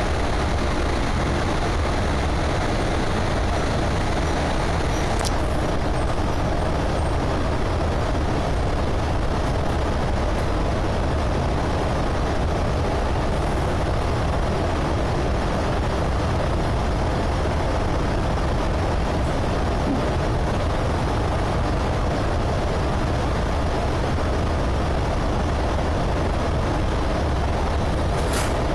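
Steady running rumble heard inside the carriage of a moving CityRail OSCAR electric multiple-unit train, with a short click about five seconds in and another near the end.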